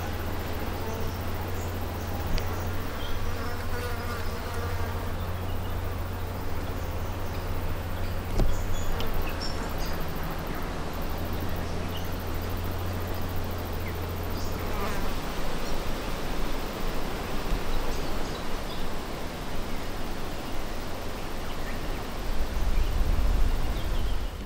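Insects buzzing steadily, with a continuous low hum.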